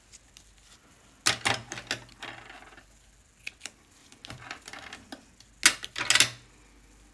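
Paper and double-sided tape being handled: several short bursts of crackling rustle and light clicks as tape is pulled and pressed onto cardstock.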